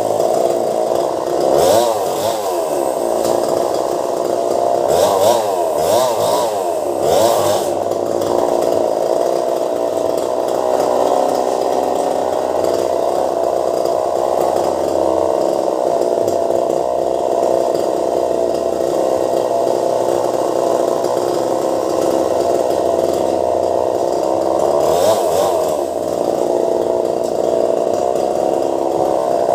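Chainsaw running at high revs, revving up and down several times in the first few seconds and again near the end, with a long steady stretch in between.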